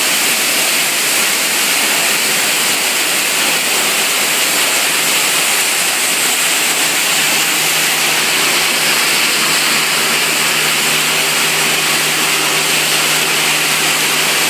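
Waste plastic washing machine running: a loud, steady rushing noise of motors and water, with a low hum joining about halfway through.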